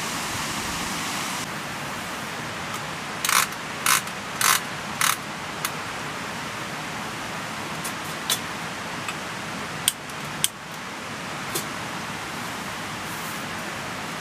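Controls of a Fujika Hi-Pet kerosene stove being worked to light it: four short rasping clicks in quick succession, then a few sharp single clicks, over a steady background hiss.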